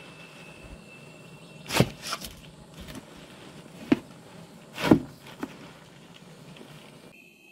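A handful of irregular knocks or thuds, with a steady thin high tone behind them.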